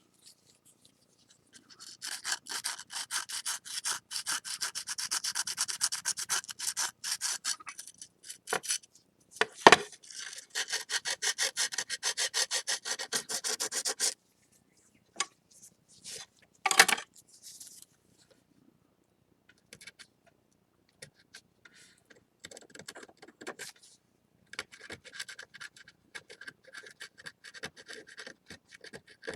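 Sandpaper rubbing across a ceramic plate in rapid back-and-forth strokes, sanding away excess urushi lacquer from a kintsugi repair. Two louder knocks come about ten seconds in and a few seconds later, and the strokes are softer in the last third.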